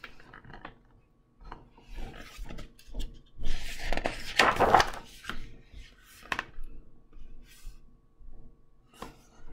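Pages of a hardcover picture book being handled and turned: paper rustling and rubbing with soft knocks, loudest in a long swish of the page about four to five seconds in.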